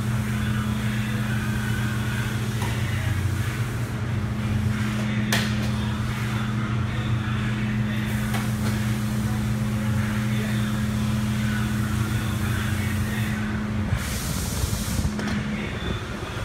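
Steady mechanical hum, one unchanging drone, that cuts off about fourteen seconds in, followed by a short hiss; a few faint sharp clicks sound over it.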